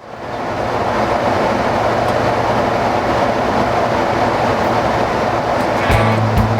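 Steady rushing hum of airflow and engines heard inside a Boeing 767-300's cockpit in flight, fading in at the start. Music with a pulsing bass comes in near the end.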